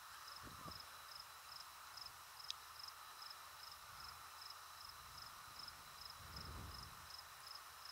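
Faint insect chirping: a high, even pulse about two and a half times a second over a soft steady hiss, with a brief low rumble about six seconds in.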